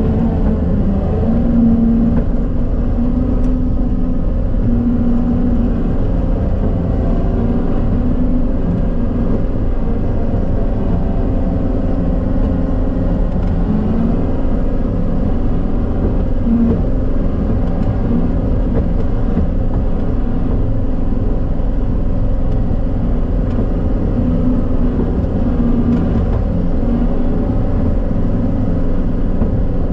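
John Deere 333G compact track loader's diesel engine running steadily, with a continuous low drone and small shifts in engine speed.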